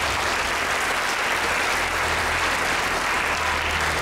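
Audience applauding, a steady round of clapping that follows the speaker's thanks.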